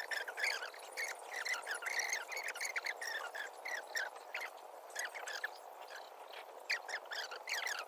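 Many birds chirping together, a dense, unbroken stream of short, quick, high calls over a faint steady background hum.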